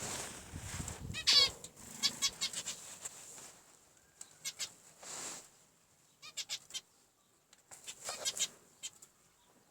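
Zebra finches calling: short, high calls in several scattered clusters, with a brief rustle in the first second.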